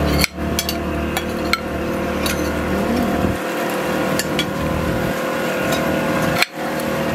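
A boat's engine running steadily, with scattered sharp clinks of a spoon and fork against a plate.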